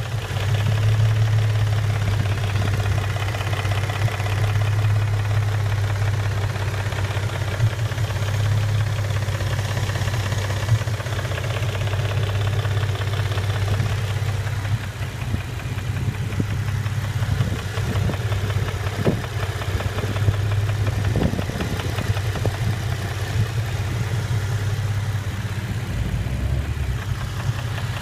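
2006 Nissan 350Z's VQ35DE rev-up 3.5-litre V6 idling steadily, with a knocking sound running through the idle even though the oil and oil level are OK.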